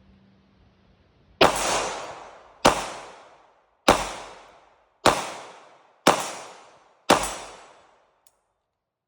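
Six 9mm pistol shots from a Hi-Point C9 built on a 3D-printed EBT-9 frame, fired at about one a second, each shot trailing off in an echo lasting about a second.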